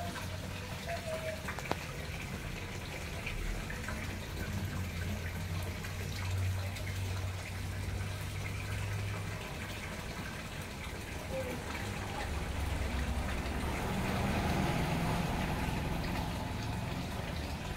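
Water pouring steadily from a small spillway into a garden fish pond, splashing into the surface.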